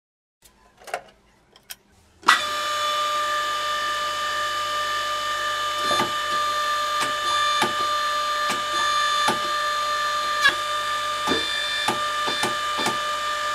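Hydraulic press's 3 hp three-phase electric motor and oil pump switching on suddenly about two seconds in and running with a steady whine. Irregular sharp clicks sound over it every half second to a second.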